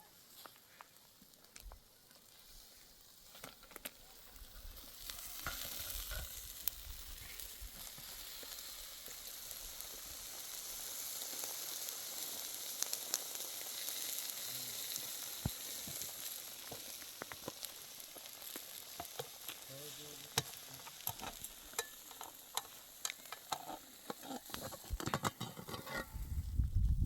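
Food frying in hot oil in a pan: a steady sizzle with many small crackles that builds up about five seconds in.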